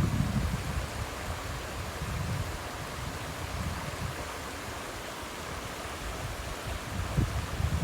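Waterfall water rushing steadily, with low wind rumble on the microphone at the start and again near the end.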